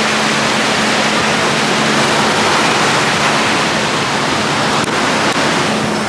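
Ocean surf breaking and washing up the shore: a loud, steady rush of waves and foam.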